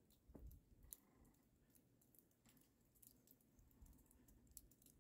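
Near silence with a few faint, scattered clicks.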